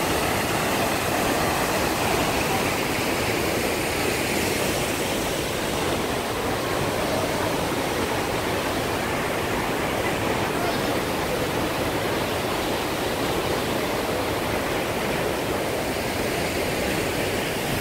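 Steady, unbroken rush of a waterfall, the Tegenungan falls.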